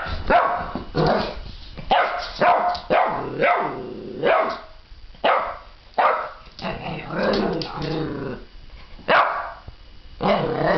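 Eleven-week-old boxer puppy barking and growling: a string of about a dozen short, high puppy barks, with a longer growling stretch about two-thirds of the way through.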